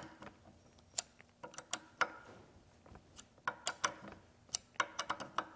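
Irregular sharp metallic clicks and ticks, about a dozen scattered through, as the clamp bolt of a chainsaw mill attachment is worked and tightened onto a Stihl chainsaw bar.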